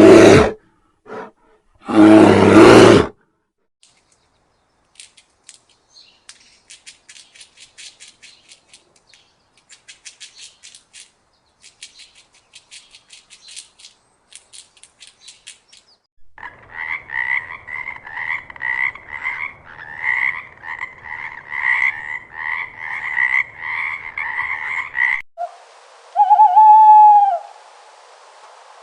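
A frog croaking in a loud, evenly pulsed series during the second half, after a long stretch of faint rapid clicking. Two short loud calls come at the start and about two seconds in, and one short call rising and falling in pitch follows the croaking near the end.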